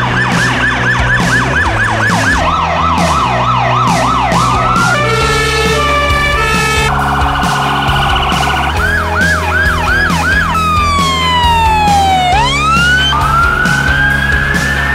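Emergency vehicle sirens changing pattern again and again: a fast yelp, slower up-and-down sweeps, a two-note hi-lo about five seconds in, then a yelp again and a long falling glide that swings back up near the end. Background music with a steady beat plays underneath.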